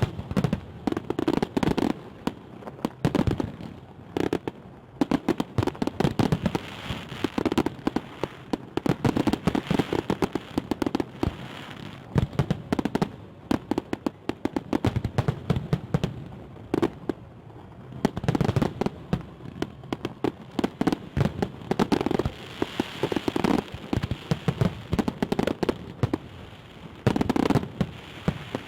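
Fireworks salute going off: dense volleys of sharp crackling pops that come in waves every couple of seconds.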